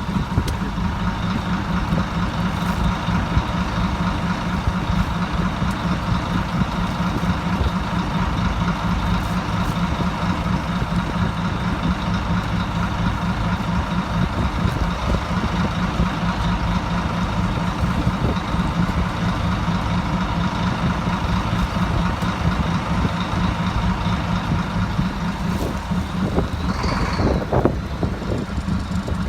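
Fishing boat's engine running steadily, a low rumble with a constant whine over it. About 27 seconds in, a brief higher sound rises and falls in pitch.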